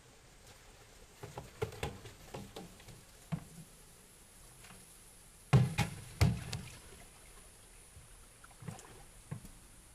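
Shallow muddy pond water splashing and sloshing in a string of irregular splashes as someone moves through it, feeling for fish by hand. The two loudest splashes come close together about halfway through.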